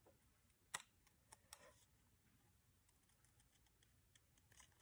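Small craft scissors snipping through thin cardstock: a few faint, sharp clicks against near silence, the clearest about a second in and a small cluster near the end.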